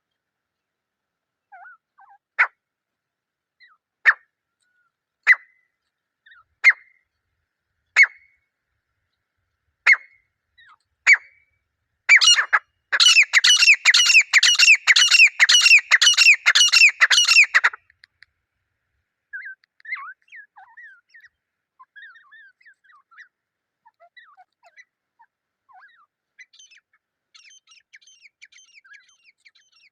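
A grey francolin pair (desi teetar) calling. Sharp single notes come about every second and a half, then build into a loud, rapid run of repeated calls that stops abruptly. Faint, softer chattering follows.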